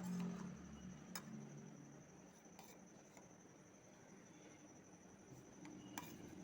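Near silence with a faint steady high whine and a few faint clicks or taps, one about a second in and one near the end.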